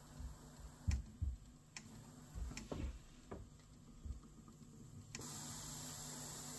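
Yamaha KX-380 cassette deck running a tape with steady hiss and a low hum, while a front-panel knob is turned with several small clicks and soft thumps. About five seconds in, the high hiss comes back suddenly, louder and steady.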